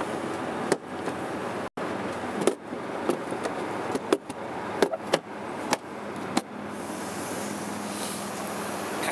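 Hard saddlebag lid and latches on a 1993 Harley-Davidson FLHTC Ultra Classic being handled and closed: a string of about ten sharp clicks and knocks over the first six seconds or so, over steady wind noise.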